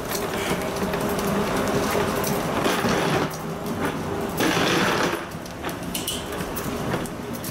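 Steady mechanical hum of jet-bridge machinery, with two louder rushing swells partway through and scattered light clicks of footsteps on the carpeted floor.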